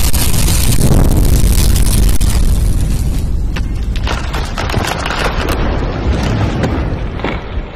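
A loud booming rumble with crackle running through it, like an explosion sound effect, strongest in the first few seconds and then slowly thinning.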